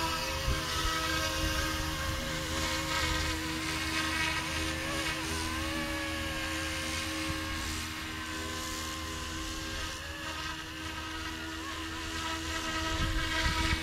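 Small electric RC scale helicopter (YXZNRC F09 Black Hawk) in flight, its motor and rotor giving a steady whine that shifts slightly in pitch as it manoeuvres. Wind rumbles on the microphone underneath.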